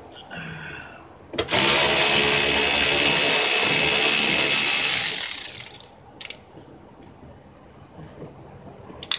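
Cordless power ratchet on a socket extension running steadily for about three and a half seconds, backing out a fender-liner fastener, then tapering off; a couple of small clicks follow.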